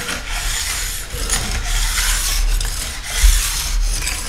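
A second-cut file in a side-edge file guide rasping along a ski's steel side edge in a run of strokes about a second each, the light final clean-up pass of side-edge filing. A low knock of the guide a little past three seconds in.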